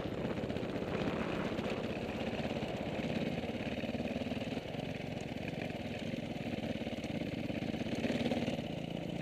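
Dirt bike engine running at low speed, heard close up from the rider's own bike, with a steady, even pulse. The revs swell slightly a couple of times.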